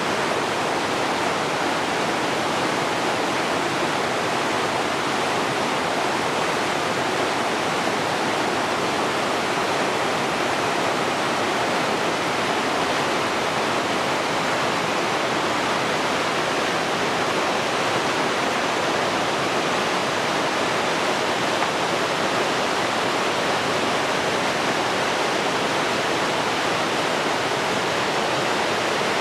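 River water rushing, a steady even noise with no breaks.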